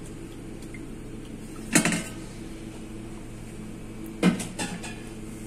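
Steady hum of a Trittico gelato batch-freezer/pasteuriser, with two short sharp knocks, one about two seconds in and one about four seconds in.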